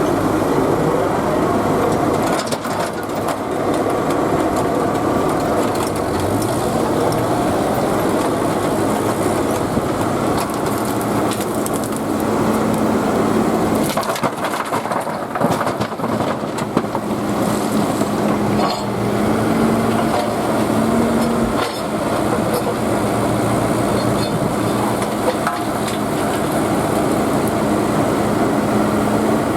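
Digger engine running under load, its note rising and falling as the hydraulics work, over the scraping, crushing and cracking of broken concrete and rubble being scooped up.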